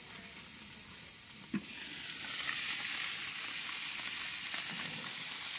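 Beef burger patties sizzling on a Char-Broil grill. About a second and a half in there is a single knock as the lid is opened, and the sizzling then becomes much louder.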